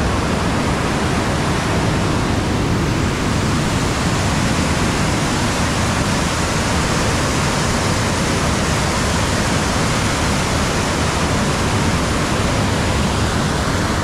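Floodwater rushing through the open sluice gates of a river barrage: a loud, steady, churning rush of water that never lets up. The river is at a danger-level flood flow.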